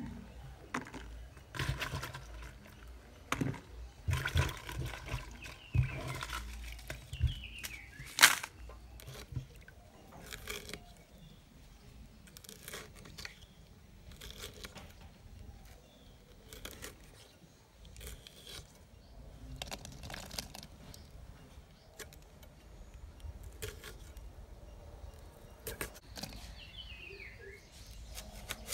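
Green chillies being sliced by hand against an upright fixed blade: scattered crunching cuts and light knocks, the loudest a sharp knock about eight seconds in.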